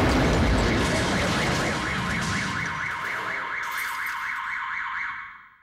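Aftermath of a bomb blast in a room: a loud rushing noise that slowly dies away, with an electronic alarm warbling rapidly, about five times a second, over it. Both cut off abruptly near the end.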